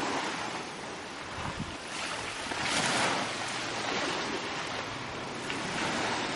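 Small waves washing in over shallow water at a sandy shore: a steady rushing that swells a little about three seconds in.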